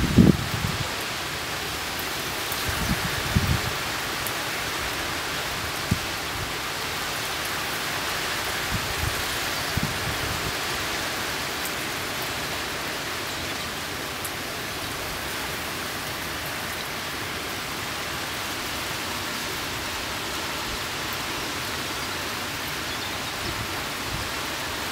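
Steady hiss of rain falling, with a few soft low thumps in the first ten seconds.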